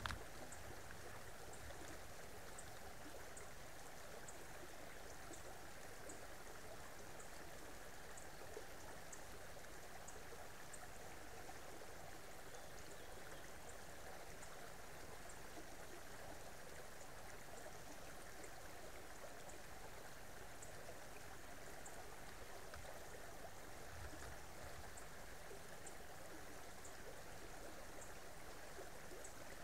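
Creek water flowing steadily, a faint, even rush, with faint high ticks repeating about twice a second above it.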